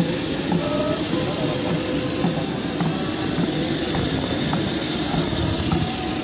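Steady mechanical noise from a parked jet airliner on an airport apron, with a few faint steady tones running through it.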